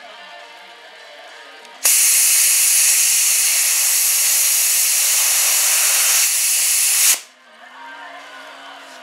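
Loud, steady hiss of rushing air, starting about two seconds in and cutting off abruptly about five seconds later.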